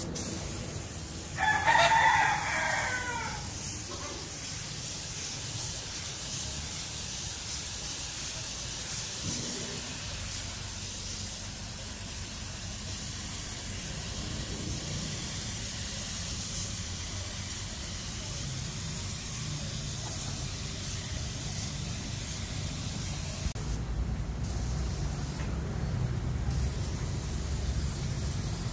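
Air-fed gravity spray gun hissing steadily as it sprays paint, with the hiss cutting out briefly three times near the end as the trigger is let go. A rooster crows once, loudly, about a second and a half in.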